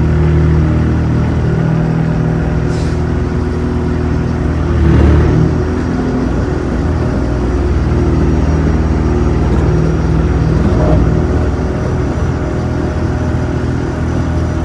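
Engine of a small tracked machine running steadily while it is driven, with a brief louder swell about five seconds in.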